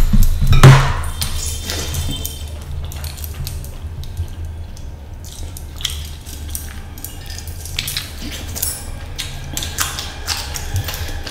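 Close-up eating sounds of a person eating fish curry and rice with his hands: wet chewing and lip-smacking with many small mouth clicks. Loud, wet smacks in the first second, then steadier chewing.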